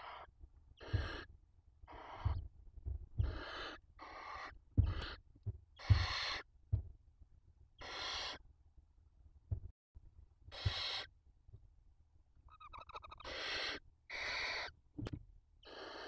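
Barn owls in a nest box giving harsh, breathy hissing screeches, about a dozen short bursts irregularly spaced, with low knocks under some of them. About two-thirds of the way through comes a brief rattling call.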